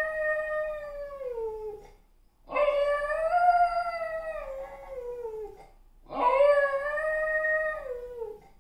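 A German Spitz howling: three long howls, each dropping in pitch as it trails off. The first is already under way and ends about two seconds in, and the other two follow after short pauses.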